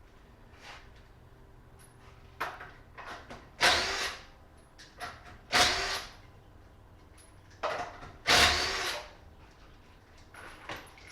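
Impact wrench run in several short bursts of about half a second to a second each, hammering on the wheel's lug nuts.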